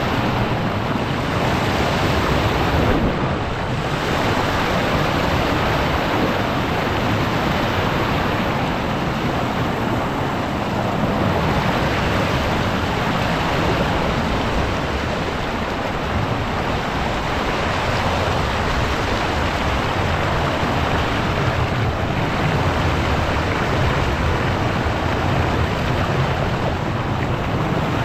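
Ocean waves surging and seawater rushing over a rock shelf: a steady, loud wash that swells and eases slightly.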